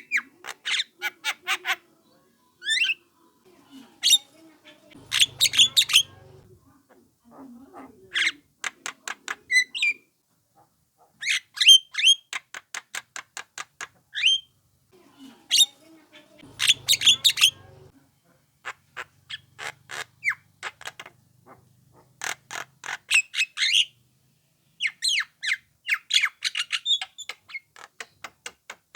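Young Javan myna calling: repeated bursts of rapid, harsh chattering notes, each burst lasting one to two seconds with short gaps between, mixed with a few short squawks.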